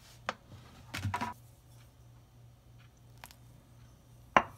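Metal spoon clinking and scraping against a stainless steel mixing bowl while stirring flour, oil and water into dough: a few short sharp clinks, the loudest near the end.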